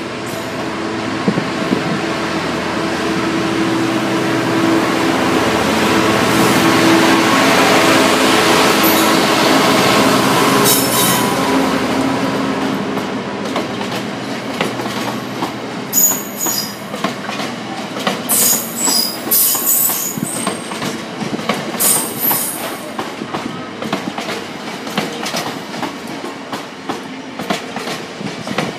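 Class 66 diesel locomotive passing close with a train of loaded coal hopper wagons: the engine drone builds to its loudest about eight seconds in, then the wagons' wheels clatter in a steady clickety-clack over the rail joints, with repeated high wheel squeals.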